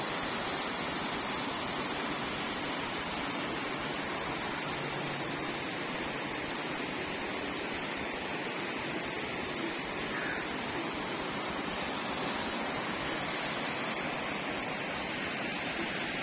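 Steady rushing water, an even unbroken noise with a bright hiss high up.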